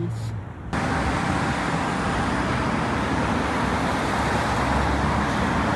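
A steady rushing noise with no clear pitch or rhythm, cutting in abruptly about a second in.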